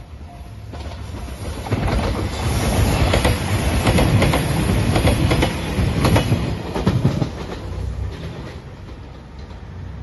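JR Shikoku 2700-series diesel limited express train passing close by at speed. Its noise swells over the first two seconds, with wheels clacking over the rail joints, then fades after about seven seconds.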